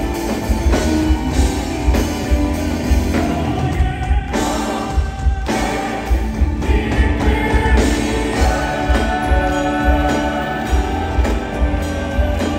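Live vocal group singing a song with band accompaniment of drums and keyboards, held sung notes over a steady beat.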